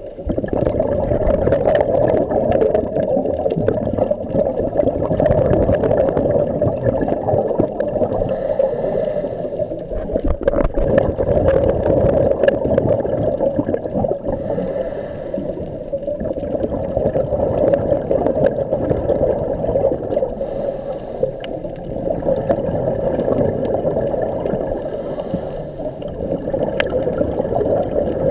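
Scuba breathing heard underwater: a rough rush of exhaled bubbles, broken about every five to six seconds by a short hiss of the regulator on the inhale.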